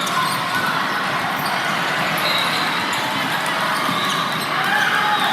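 Echoing gymnasium din: steady background chatter of many voices, with a ball bouncing on the court floor.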